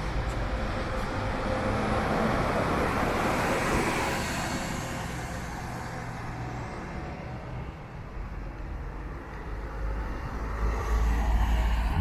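Cars passing on a street: tyre and engine noise swells and fades about four seconds in, then a second car passes close near the end with a deeper rumble.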